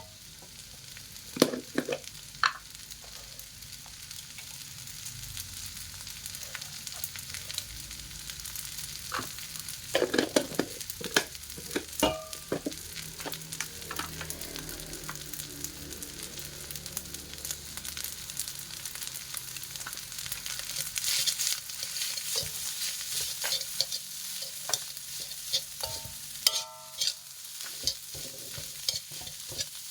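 Fried rice sizzling in a frying pan as it is stirred, with a steady hiss and a spatula clacking and scraping against the pan now and then, most busily about a third of the way in.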